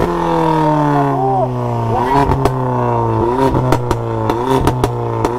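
A vehicle engine running at a steady speed, its pitch settling a little lower in the first second or two and then holding. A scatter of sharp clicks or pops comes in from about two seconds in.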